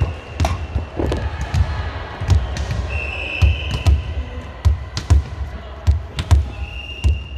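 A ball bouncing on a hard gym floor, repeated irregular thuds about two a second, with sneakers squeaking on the court twice.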